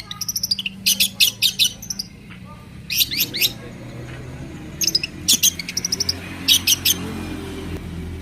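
Long-tailed shrike (cendet) calling in short bursts of three to five rapid, sharp notes. The bursts repeat every second or two.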